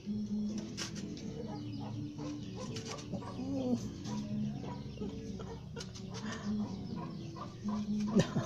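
Chickens clucking in the background, with scattered light taps of fingers handling biscuits in an aluminium tray. A sharper knock comes near the end.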